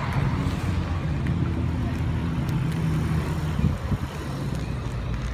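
Car engine running close by, a steady low rumble that eases off about four seconds in.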